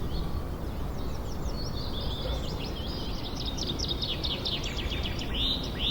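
Several birds chirping in quick series of short notes and trills, busiest from about two seconds in, over a steady low background noise.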